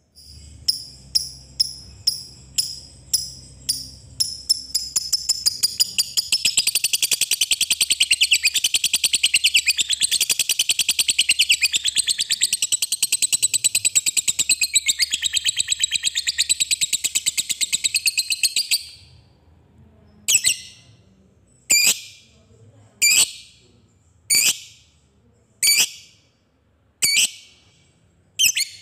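Lovebird calling: sharp ticking chirps, about two a second, speed up into a long, fast chattering trill (the 'ngekek') lasting some fourteen seconds. The trill stops abruptly, and single sharp chirps follow about once every second and a quarter.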